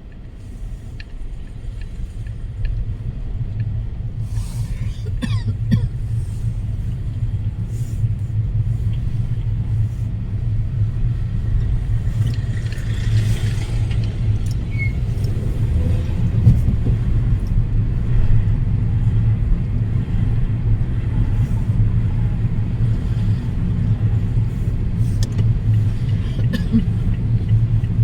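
Strong storm wind buffeting the microphone as a loud, low rumble, building over the first few seconds and then gusting on.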